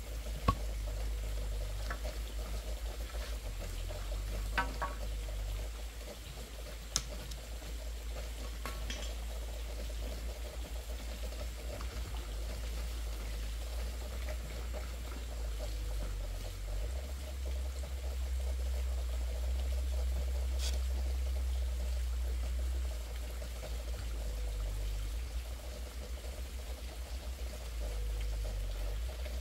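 Water running or trickling steadily over a low steady rumble, with a few light knocks.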